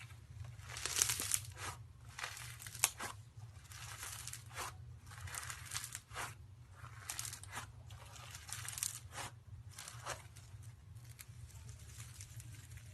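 Slime being squeezed and stretched by hand, making a run of crackling, popping bursts, with the sharpest pops in the first three seconds and the crackling dying away near the end. A steady low hum runs underneath.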